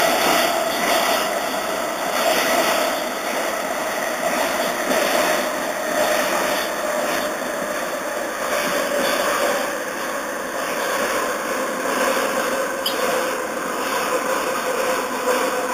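MLR electric multiple unit's traction motors and wheels on the rails, heard from inside the car while it runs, with a steady motor tone that slowly drops in pitch.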